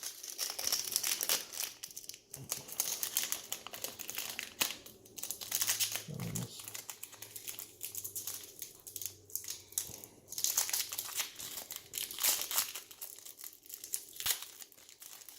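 Trading-card pack wrappers crinkling and tearing as packs are opened, in irregular crackly rustles throughout.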